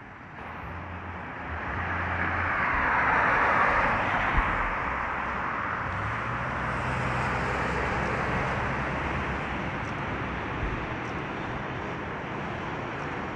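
A passing vehicle: its noise swells over the first few seconds and peaks about three to four seconds in, then settles into a steady rumble of traffic.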